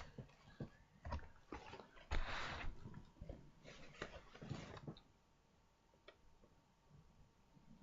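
Plastic shrink wrap rustling and crinkling with small clicks and taps as a model kit box is handled, with one louder rustle a little after two seconds; it goes quiet about five seconds in.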